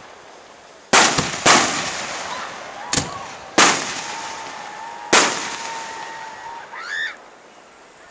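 Aerial fireworks shells bursting overhead: five bangs over about four seconds, one of them weaker, each followed by a long echo that fades away.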